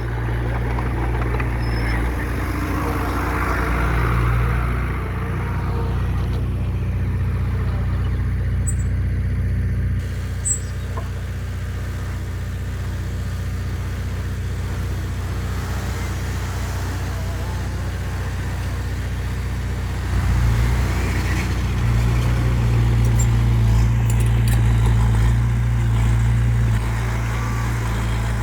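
Heavy machinery's diesel engine running with a steady low drone, growing louder for several seconds about two-thirds of the way through.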